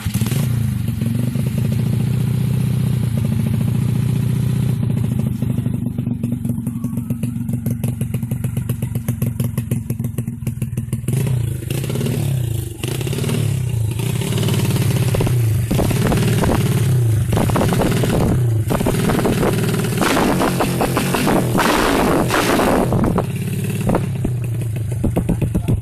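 Honda Grand motorcycle's single-cylinder four-stroke engine, bored up to 130cc, idling steadily for about ten seconds. It is then revved up and down repeatedly for about ten seconds before settling back to a steady idle near the end.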